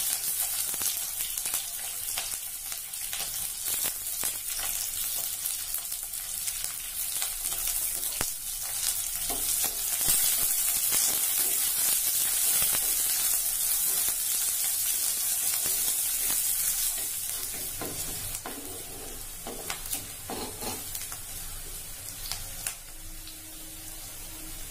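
Chopped onions and garlic sizzling in hot sesame oil in a heavy black pot, stirred with a wooden spatula that scrapes and knocks against the pot. The sizzle grows quieter in the last third as the onions soften.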